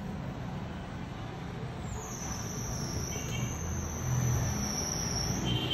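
Steady low background rumble, with a thin, high, steady whistling tone that starts about two seconds in and lasts about three and a half seconds.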